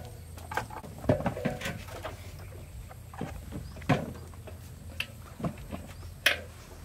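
Whole watermelons being set into a large aluminium basin, knocking against the metal rim and against each other in a scattering of short thuds and clunks, the sharpest about 1, 4 and 6 seconds in.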